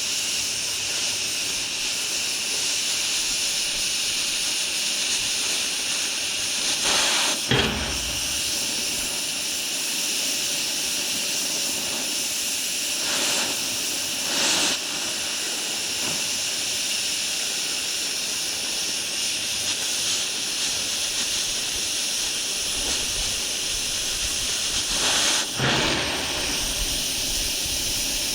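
Stick welding arc crackling and hissing steadily as a bead is run, briefly louder three times.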